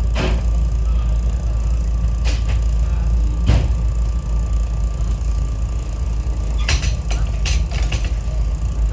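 SEPTA Regional Rail electric commuter train running, heard from on board: a steady low rumble with a faint steady whine, broken by sharp clicks and knocks, a quick cluster of them near the end.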